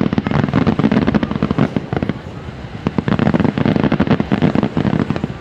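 Fireworks display going off: a dense rapid string of bangs and crackles, in two heavy volleys with a short lull about two seconds in.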